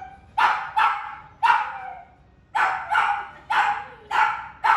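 A dog barking repeatedly, about eight sharp barks with a short pause after the first three. This is attention-seeking barking at a familiar person seen outside through the glass.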